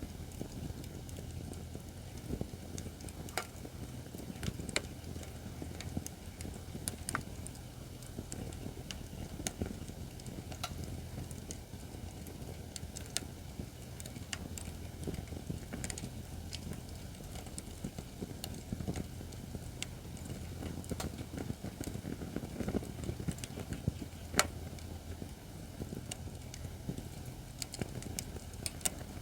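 Acacia firewood burning in a campfire stand, crackling with irregular sharp pops, a few louder ones, over a low steady rumble.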